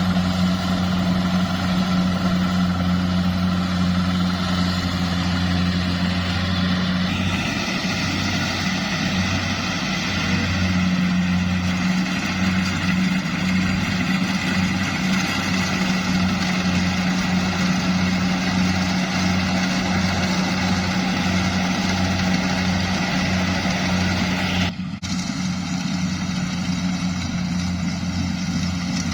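A farm machine's engine, on a rice harvester or a tractor, runs steadily with a low hum. About seven seconds in, a rougher, higher clatter joins it and the hum begins to pulse unevenly. It dips briefly near the end and then goes on running.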